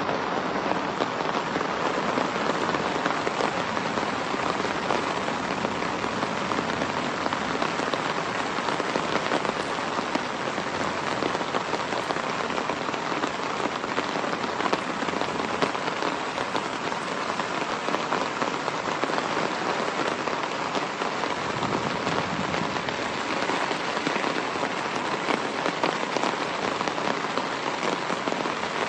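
Medium to heavy rain falling steadily on puddled ground, an even hiss of countless drops.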